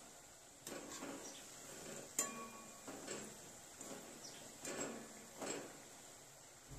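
Metal slotted spoon scraping and clinking against a kadai while stirring potato pieces frying in oil: a handful of faint scrapes and light clinks, the sharpest a ringing metal clink about two seconds in.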